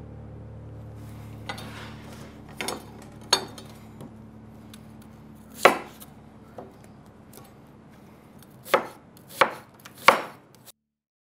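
Kitchen knife chopping vegetables on a wooden cutting board: single chops at irregular intervals, one loud stroke near the middle and a quick run of three near the end, then the sound cuts off suddenly.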